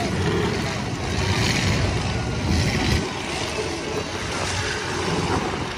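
Demolition derby cars' engines running in the arena, a steady low rumble that swells for a moment about two seconds in.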